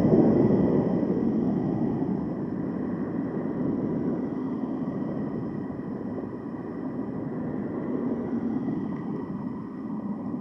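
A semi truck passing close by, its noise loudest at the start and easing off over the first couple of seconds. This is followed by a steady rush of wind and road noise from a moving e-bike, with faint steady high-pitched whines underneath.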